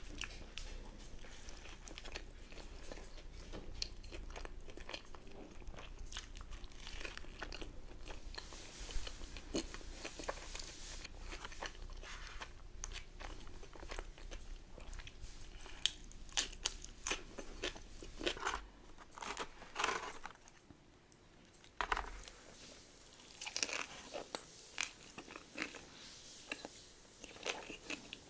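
Close-up eating: bites and chewing of crunchy fried food, with many irregular crisp crunches and mouth sounds.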